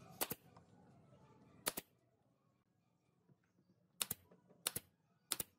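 Nail gun firing five times, driving nails into wood: sharp double-clicking shots, two in the first couple of seconds and three in quick succession near the end.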